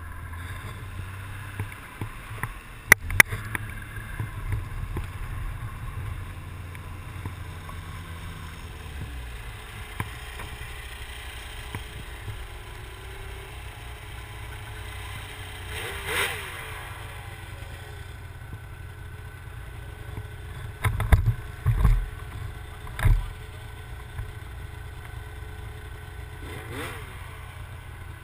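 Snowmobile engine running as the sled crosses the snow, easing down to a steady idle after about eight seconds. A couple of sharp clicks come about three seconds in, and several dull thumps come about three-quarters of the way through.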